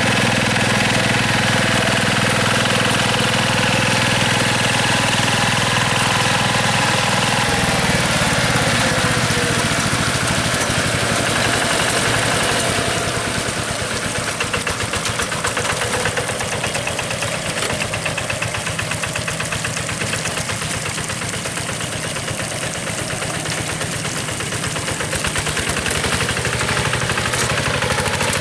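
Yanmar TF105 single-cylinder diesel engine of a rotary hand tractor running steadily. Its note changes about seven seconds in, and it gets a little quieter about halfway through.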